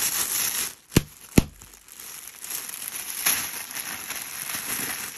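Packaging crinkling and rustling as it is opened by hand, with two sharp clicks about a second in, then softer rustling.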